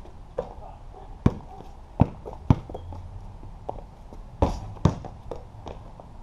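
A basketball bouncing on a concrete patio in a series of irregular sharp thumps, with sneaker footsteps between them.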